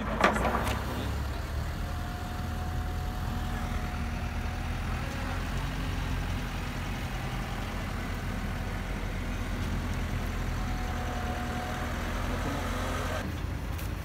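Engine of a work vehicle running steadily, a continuous low rumble, with a few sharp knocks in the first second.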